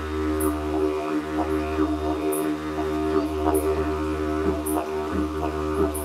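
Two wooden didgeridoos played together: a deep, steady drone with a rhythmic pulse of accents and shifting vowel-like tones, plus a short high hiss recurring about once a second.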